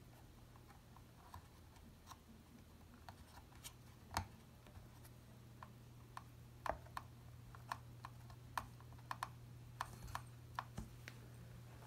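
Faint, irregular small clicks and taps of fingers pressing tiny antenna cable connectors onto an M.2 WWAN card on a tablet's circuit board, coming more often in the second half, over a steady low hum.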